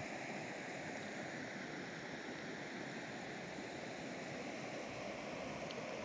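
Steady rushing of a low river waterfall cascading over rocks.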